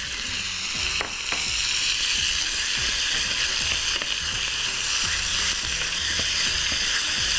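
Chunks of raw lamb searing in hot oil in a frying pan: a steady sizzle, with a few light knocks and scrapes of a wooden spatula as the meat is stirred.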